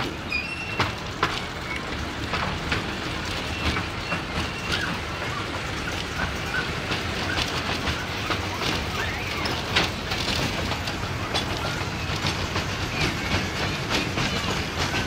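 Small joy train running slowly along its track, heard from on board: a steady rumble of the wheels with irregular clicks and knocks over the rails.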